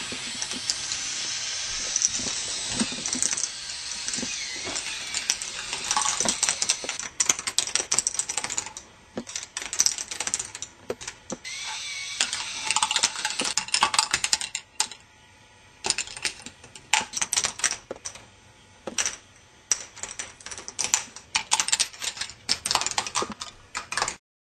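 K'nex ball machine running: small balls rolling and clattering along plastic track, a dense run of clicks and rattles with a few short lulls, cutting off suddenly near the end.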